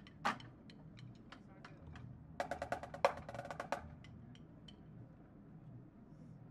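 Marching drumline playing a quiet, sparse passage: scattered sharp stick and rim clicks, one strong hit just after the start, and a quick run of about ten soft drum strokes in the middle.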